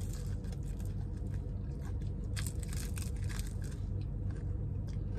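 Biting and chewing a piece of crispy breaded fried chicken, with a few faint crunches about halfway through. A steady low hum runs underneath.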